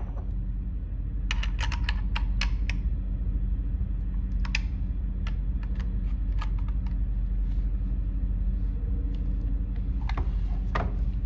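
Scattered light clicks and taps, a quick cluster about a second in and single ones spaced out after, over a steady low hum.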